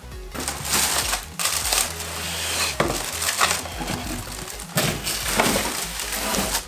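Clear plastic bag crinkling and rustling as a bagged subwoofer is handled and drawn out of its cardboard box, with irregular sharp crackles throughout.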